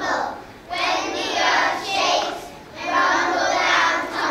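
A group of young children singing a song together, in phrases with short breaks between them.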